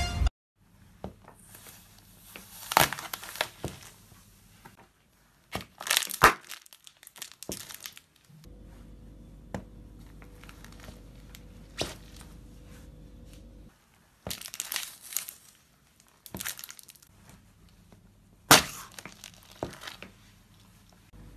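A sneaker stepping on and crushing small objects on a wooden floor: several short bursts of crunching and crumpling, with quiet stretches between them. Near the end, eggs crack and squash under the shoe.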